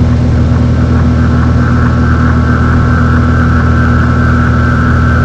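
Cessna 182's six-cylinder Continental O-470 engine and propeller droning steadily at cruise power, heard from inside the cabin. A thin, steady high tone joins the drone about a second and a half in.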